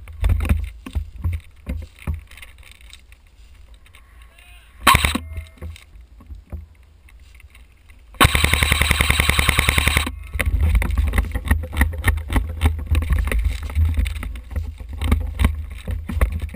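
Airsoft gun firing a full-auto burst of about two seconds, a fast even string of sharp clicks, about eight seconds in; a single sharp snap comes a few seconds before it. Around it are rustling, handling clicks and a low rumble on the body-worn microphone.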